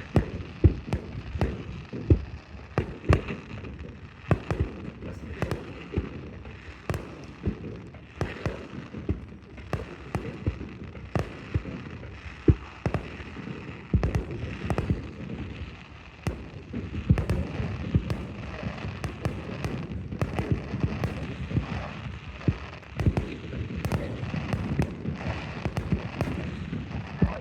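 Fireworks display: a dense, continuous run of sharp bangs and crackles, several a second, over a steady rumbling haze.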